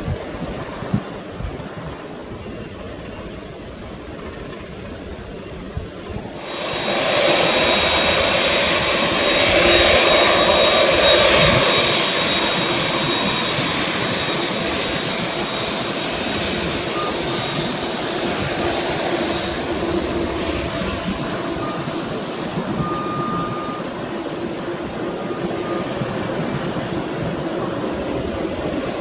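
Fainter jet rumble of a landing Boeing 747-400F freighter, then about six seconds in an abrupt change to the much louder, steady jet noise of an EVA Air Boeing 787-9's GE turbofans running close by. The noise is loudest a few seconds after the change and then holds steady.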